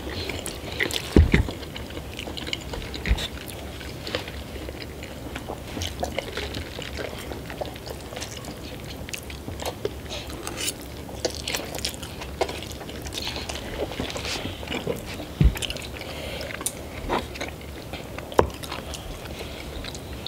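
Close-miked eating: people chewing and slurping instant noodles, with forks clicking against the noodle cups and several sharper knocks.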